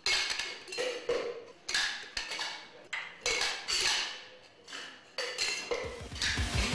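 A string of about ten sharp clinks at uneven intervals, each ringing briefly, as of hard objects struck together.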